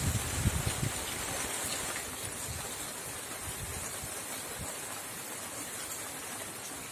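Steady rain falling, an even hiss, with a few low thumps in the first second.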